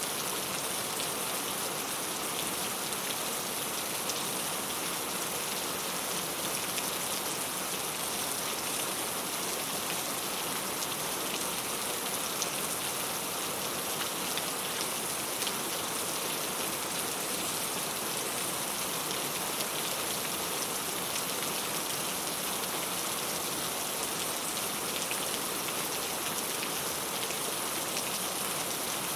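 Steady rain falling on a clay tile roof, an even patter with individual drops ticking on the tiles.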